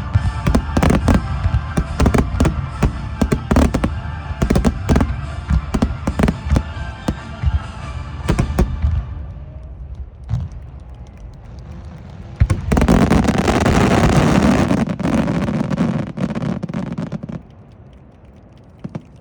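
Fireworks bursting in quick succession, many sharp bangs over the first half, with music playing underneath. Later a dense crackling stretch of several seconds, which then dies away.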